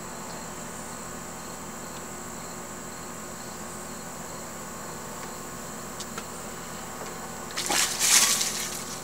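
A bucket of ice water dumped over a person's head near the end: a loud splash and pour lasting about a second and a half. Before it there is only a steady high insect drone.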